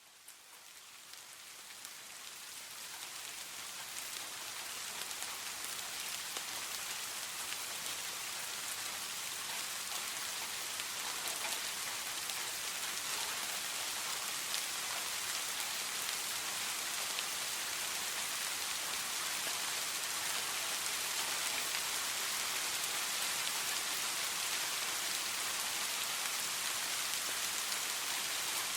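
Steady rain falling, a dense hiss of drops with fine individual pattering ticks, fading in over the first few seconds and then holding steady.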